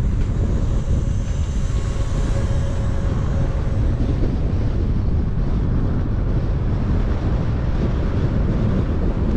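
Wind buffeting the microphone: a steady, gusty low rumble with no clear tone.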